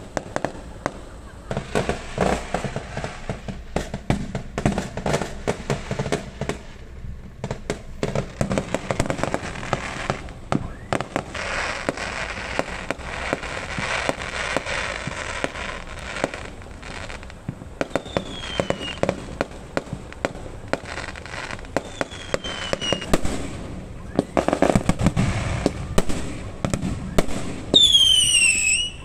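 Fireworks going off in rapid succession: many sharp bangs and dense crackling, with a few short falling whistles and a louder whistle near the end.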